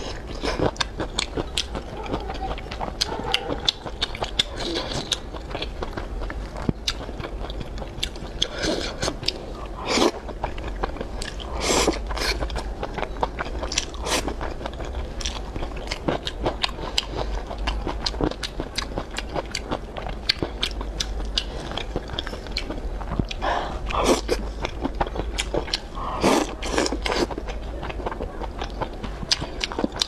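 Close-miked biting and chewing of a crunchy pickled Laba garlic clove: a steady run of small crunches and mouth clicks, with several louder crunches along the way.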